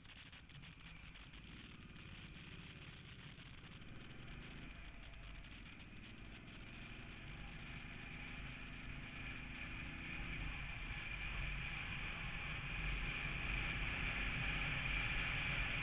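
A vehicle's engine accelerating through the gears: the revs climb, then drop back at a gear change about five seconds in and again near eleven seconds. Road and wind noise grows steadily louder as the speed rises.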